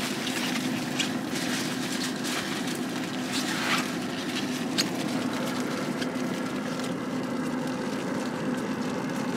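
A steady low machine hum, with a few light rustles and clicks over it.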